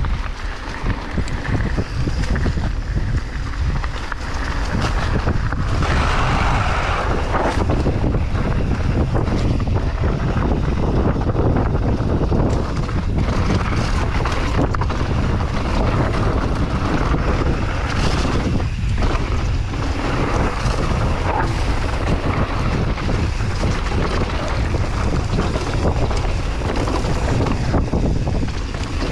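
Wind buffeting the microphone of a mountain biker's camera during a fast trail descent, over a steady low rumble of tyres on dirt and rapid clicks and rattles from the bike bouncing over bumps.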